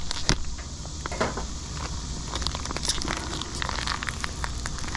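Sweet potato slices and a sockeye salmon fillet sizzling and crackling on a hot 48-inch Blackstone griddle, with many fine irregular pops.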